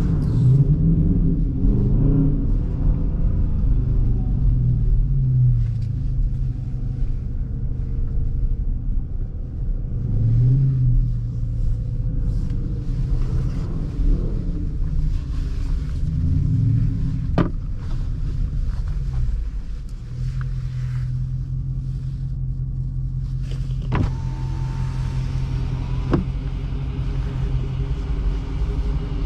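Dodge Charger R/T's HEMI V8 heard from inside the cabin while driving slowly, its pitch rising and falling with light throttle several times, then running steadily for the last third. A few sharp knocks sound partway through.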